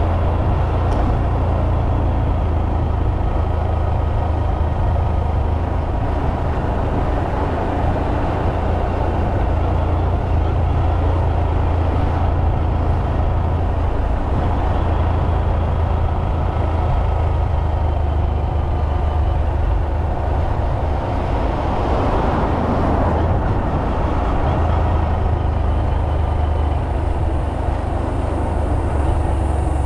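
Honda Monkey 125's single-cylinder four-stroke engine running at a steady pace while riding along the road, with a brief swell in the sound about three quarters of the way through.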